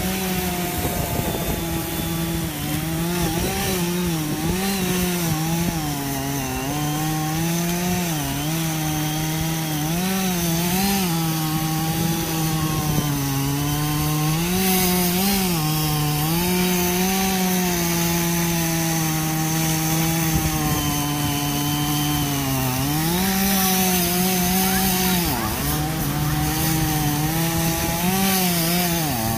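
Gas chainsaw cutting into the trunk of a large dead tree, running continuously, its pitch dipping and rising again every second or two as it works through the wood.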